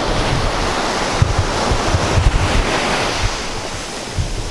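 Ocean surf washing up the beach, with wind buffeting the microphone in low, uneven rumbles.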